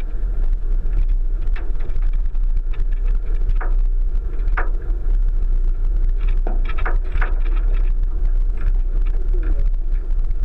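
1999 Subaru Forester driving over a rough dirt track: a steady low rumble with scattered knocks and rattles, several of them bunched together about six to seven seconds in.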